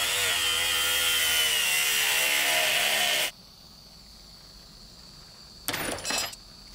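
Angle grinder cutting into a screwdriver's plastic handle, running loud with its pitch wavering under load, then cutting off suddenly about three seconds in. Near the end, a short burst of hammer blows.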